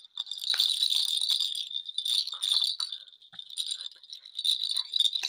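Small metal bells jingling, shaken in repeated bursts like a baby's bell rattle.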